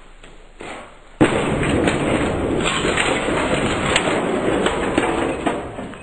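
A sudden loud crash about a second in, followed by several seconds of loud, dense clattering noise with many small knocks that dies down near the end.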